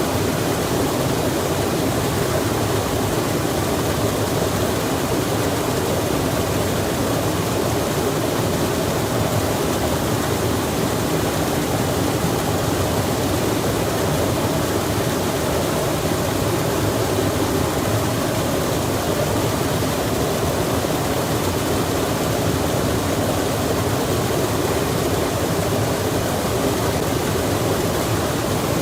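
Steady, unbroken rush of a stream with rain falling, a dense even wash of water noise.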